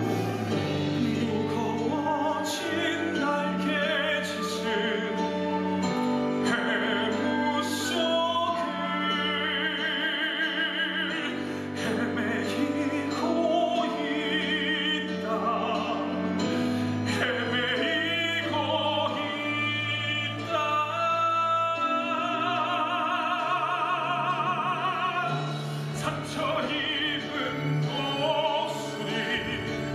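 A man singing a dramatic musical-theatre ballad with wide vibrato on long held notes, over orchestral accompaniment, amplified through a microphone.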